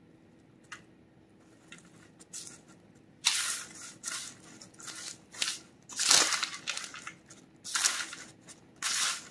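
Chopped toasted pecans crunching and rustling against parchment paper as hands press and scoop them onto a soft log of divinity candy. It comes in several short bursts starting about three seconds in, after a faint opening.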